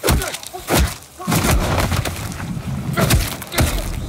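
Film fight sound effects: a run of about five heavy punch and body-impact hits, with a low rumble underneath from about a second in.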